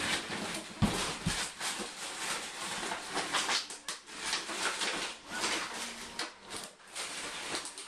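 A litter of young puppies nursing: an irregular patter of suckling smacks and rustling, with a couple of dull thumps about a second in.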